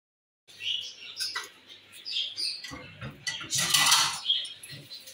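Small birds chirping in short, repeated calls, starting about half a second in. A brief burst of noise about three and a half seconds in is the loudest sound.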